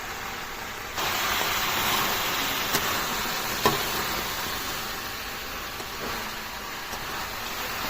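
Chicken curry with its spice paste sizzling in a hot pot, a steady hiss that gets louder about a second in, with a couple of sharp clicks.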